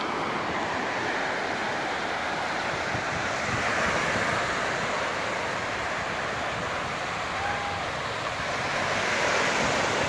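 Small sea waves breaking and washing up a sandy beach: a steady hiss of surf and foam that swells about halfway through and again near the end.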